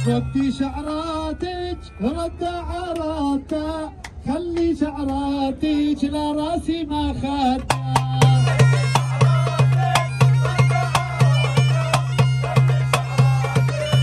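Arab folk street band: a man sings a free, wavering melody over sparse hand-drum taps, then a little over halfway through the bagpipes come back in, a steady drone under a busy chanter tune, with a darbuka beating a regular rhythm.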